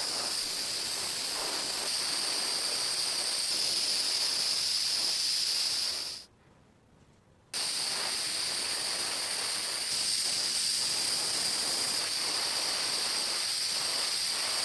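Paint spray hissing steadily from a nozzle, cut off for about a second a little past the middle and then starting again.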